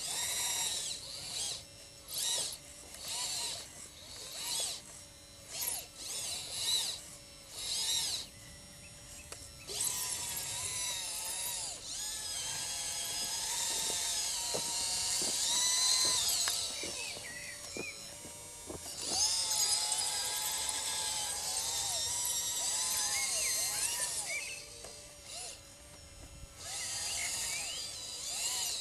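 Battery-powered RC scale model Liebherr LR632 track loader whirring and whining from its electric motors, gearing and hydraulics. It goes in short bursts about twice a second at first, then in two long runs with the whine rising and falling in pitch while it drives carrying a loaded bucket, then short bursts again near the end.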